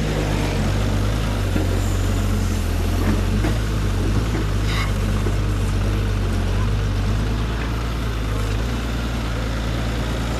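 An engine running steadily, a low hum under a dense rushing noise.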